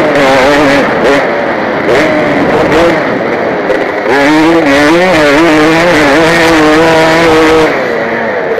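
KTM 250 motocross bike engine revving hard, the pitch climbing and dropping again and again as the rider works the throttle and gears, with rushing wind noise. It dips briefly about one and four seconds in, holds a high steady note for a couple of seconds, then drops near the end.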